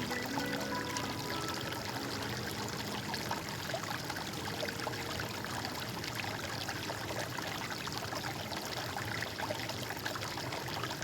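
Stream water running and trickling steadily, an even splashing rush with many small gurgles.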